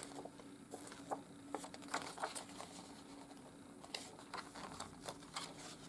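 Faint rustling of a paper cover insert and light clicks of a plastic Blu-ray case being handled, scattered irregularly, over a faint steady hum.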